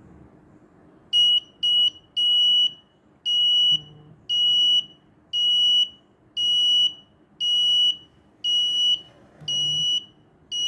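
The buzzer of a homemade ESP32 and MQ7 carbon monoxide alarm is sounding its alert. It gives a high, single-pitched beep about once a second, starting about a second in with two quick short beeps and then settling into longer beeps.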